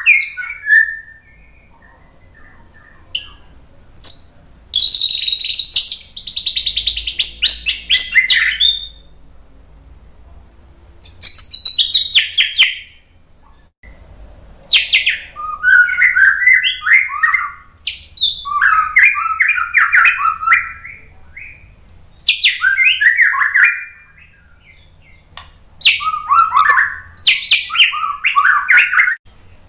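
Male white-rumped shama singing loud bursts of varied, quick whistled phrases with short pauses between them. A long, fast rapid-fire phrase runs from about five to nine seconds in.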